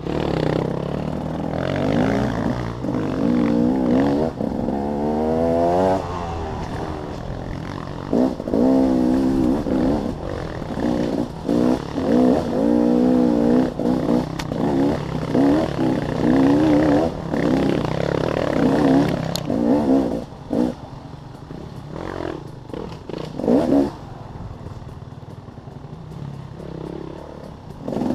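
Dirt bike engine being ridden hard, the revs rising and falling over and over as the throttle is worked, with scattered clattering knocks. Quieter for the last few seconds.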